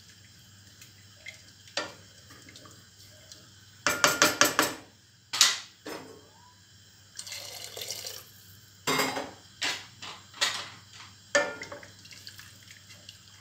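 A spoon stirring potatoes in broth in a stainless steel pot, knocking and scraping against the pot's sides: a quick run of clinks about four seconds in, then single knocks a second or so apart near the end.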